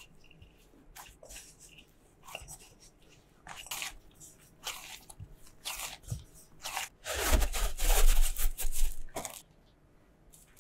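Hands kneading and rounding a soft bread dough in a glass bowl: intermittent squishing, slapping and scraping strokes. About seven seconds in comes a louder stretch of crinkling as plastic wrap is pulled over the bowl.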